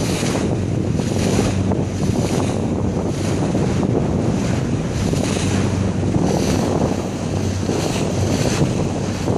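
Tour boat under way: the engine runs as a steady low hum beneath water rushing past the hull and wind buffeting the microphone in repeated gusts.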